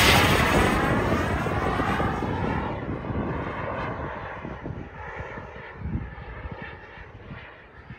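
Turbine engine of a radio-controlled HSD F-16 model jet on a low pass, a loud rushing jet sound with a sweeping phasing in pitch, loudest at the start and fading steadily as the jet flies away.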